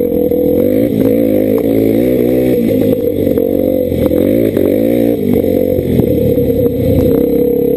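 Four-stroke single-cylinder Honda dirt bike engine heard close up from the bike, rising and falling in pitch with the throttle for the first five seconds or so, then running steadier. Short knocks and clatter from the rough, stony track come through throughout.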